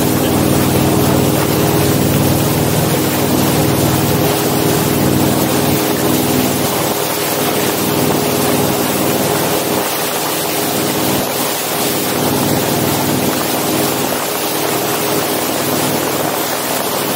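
Motorboat engine running steadily under way, over the rushing, hissing spray of the churning wake behind it.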